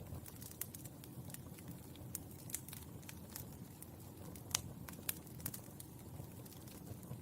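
Burning charcoal crackling: irregular sharp pops and ticks over a steady low rumble of the fire, the loudest pop about four and a half seconds in.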